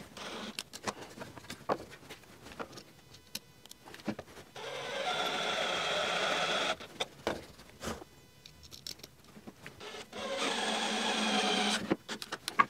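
Cordless drill driving screws into a wooden jig, the motor running in two steady bursts of about two seconds each, one about four and a half seconds in and one about ten seconds in. Light clicks and knocks of handling the drill and wood come between the runs.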